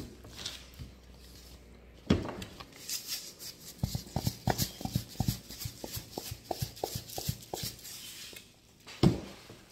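A plastic seasoning shaker is shaken over a bowl of food in a run of quick rattling shakes, about four a second, with a soft knock before the shaking and a louder knock near the end.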